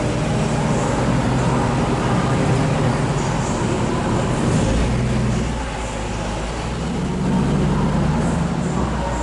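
Supercharged 5.4-litre V8 of a 2001 Ford F-150 Lightning running steadily. Its note drops and quietens about five and a half seconds in, then rises back up about a second and a half later.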